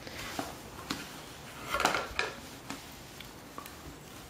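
Light clicks and clacks of toy train track pieces being handled and set down, a few scattered knocks with a small cluster about two seconds in.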